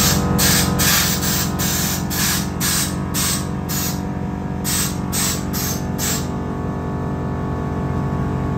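Background music playing throughout, over a run of short hissing bursts, about two or three a second, that stop about six seconds in, with one more near the end.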